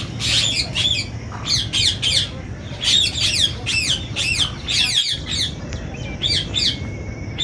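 Birds squawking: repeated short, harsh calls in quick clusters of two to four, over and over.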